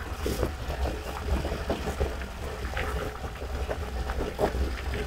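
Water slapping and splashing irregularly against the hull of a moving inflatable dinghy, with a steady wind rumble on the microphone.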